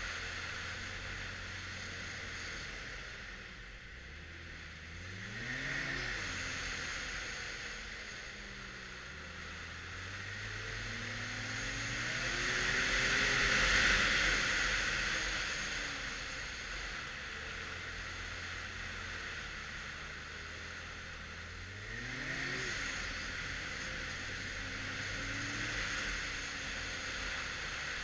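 A 2013 Arctic Cat XF 1100 Turbo snowmobile's turbocharged engine riding along a trail. Its pitch climbs and drops with the throttle about five seconds in and again near the end, over a rushing noise that swells to its loudest about halfway through.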